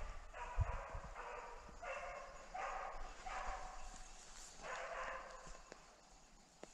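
Brittany spaniel giving a run of about seven drawn-out cries, each about half a second long, which stop about a second before the end.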